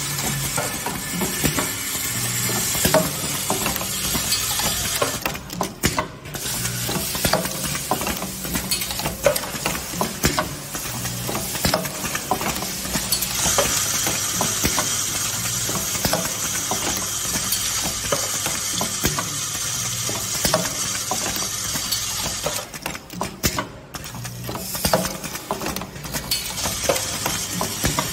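Automatic O-ring assembly machine running: a dense rattling clatter with many small clicks over a steady low hum. A higher hiss joins about halfway through.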